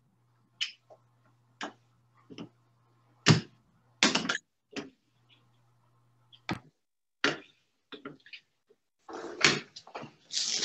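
Scattered sharp clicks and knocks, desk and microphone handling noise picked up by an open video-call microphone, over a faint low hum that comes and goes. Near the end comes a longer rustling noise.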